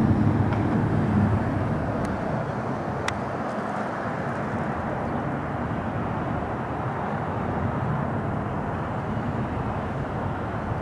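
Distant jet noise from a climbing Airbus A380's four engines: a steady rumble, a little stronger in the first second or so and then even.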